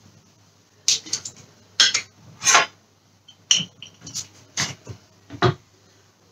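Glass jar of honey being opened and handled on a kitchen counter: about eight sharp clinks and knocks of the lid, the glass and a metal knife against the jar.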